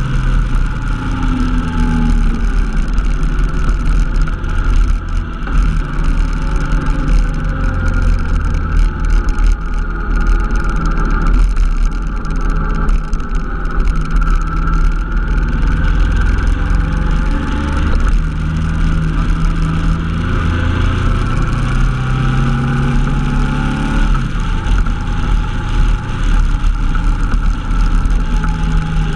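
Honda NT700V Deauville's V-twin engine running under way, heard on board, its note slowly rising and falling with the throttle, over a steady low rush of wind.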